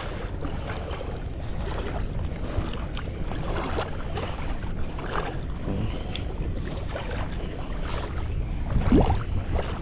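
Wind rumbling steadily on the microphone over shallow seawater lapping. About nine seconds in there is a short rising sound.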